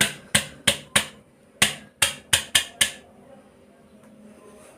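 A quick series of about nine sharp taps or clicks from kitchen utensils during the first three seconds, then they stop.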